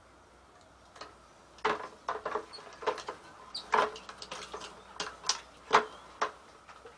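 Irregular sharp clicks and taps of plastic winemaking gear being handled, a dozen or so over about five seconds: siphon tubing and its filler piece in use filling a spray bottle with sanitizer.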